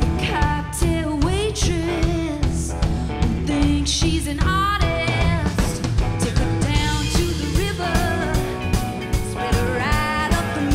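Live rock band playing: a woman sings lead over electric guitars, bass guitar and a drum kit keeping a steady beat.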